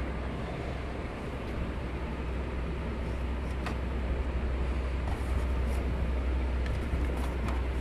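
Steady low mechanical hum with a noisy rumble over it, broken by a few faint clicks and taps.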